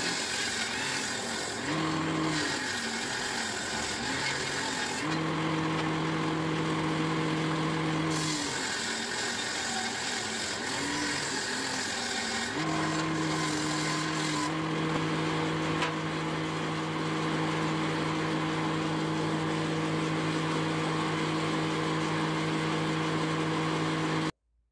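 Electric table saw ripping linden boards: the motor hum sags and wobbles while the blade is in the wood, and runs at a steady pitch between cuts. The sound cuts off suddenly near the end.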